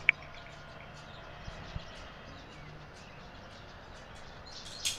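Low, even background noise, with one short high tick at the very start and a brief hissy burst near the end.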